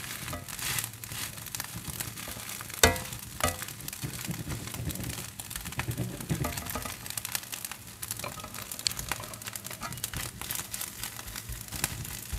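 Egg fried rice sizzling in a wok while a metal spatula scrapes and turns it, with many small clicks and one sharp knock about three seconds in. The rice is being fried until it browns and crisps.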